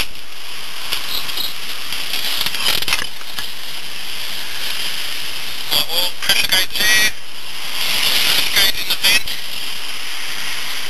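Rebuilt Mitsubishi 4G63 turbo four-cylinder engine running, heard from inside the car's cabin. It makes a steady noise with a few short louder moments.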